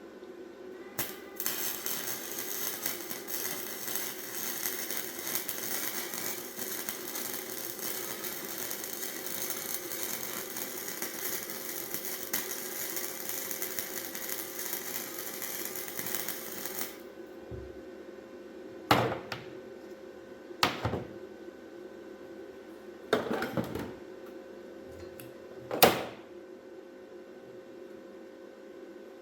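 A shop power tool runs with a steady, dense rattle for about fifteen seconds and cuts off suddenly. Four sharp knocks follow a few seconds apart.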